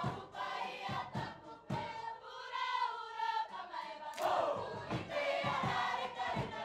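A large mixed choir of Cook Islands performers singing a song together in harmony, with sharp beats under the voices and a loud swell about four seconds in.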